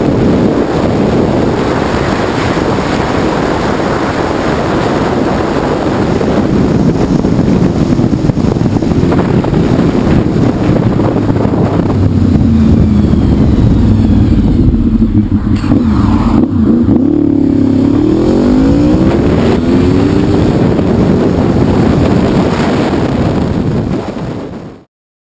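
Wind rushing over a helmet-mounted camera at road speed, with a Honda VFR750's V4 engine running underneath. About halfway through, the engine note falls and then climbs again as the bike slows and picks up speed, and the sound fades out near the end.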